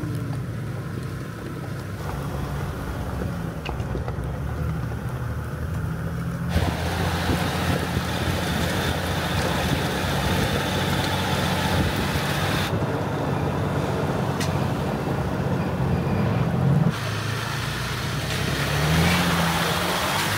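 Jeep engine running at crawling speed with the tyres crunching over loose gravel. The gravel crunch grows louder about six seconds in, and the engine note rises a couple of times near the end.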